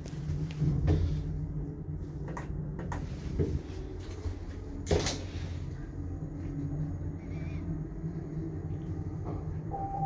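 Passenger lift car travelling upward: a steady low ride hum with a few short knocks, the loudest about halfway. Right at the end a chime tone starts as the car arrives at its floor.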